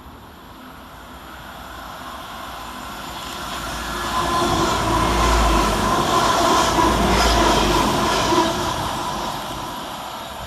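A pair of Class 197 diesel multiple units passing through the station without stopping. The engine note and wheel noise build over the first few seconds, are loudest in the middle, then fade away.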